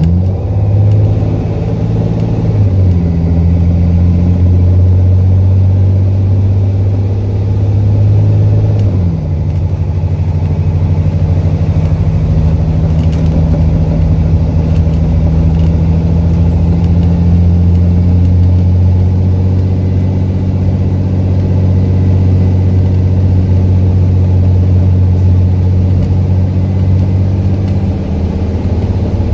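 Alexander Dennis Enviro400 double-decker bus's diesel engine heard loudly on board, running with the harsh note of a blown exhaust. The engine note shifts around three and nine seconds in, then holds a steady drone.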